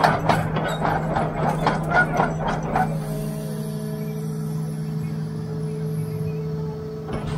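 Doosan excavator's diesel engine running at a steady pitch while working a grading beam. A run of rapid, irregular clattering fills the first three seconds, and after that a steady higher whine is heard over the engine.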